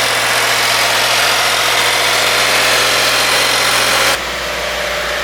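2016 Subaru WRX's turbocharged flat-four idling just after its first startup since the wiring harness was repaired. A loud, even hiss with a low hum lies over the idle and cuts off suddenly about four seconds in, leaving the quieter idle.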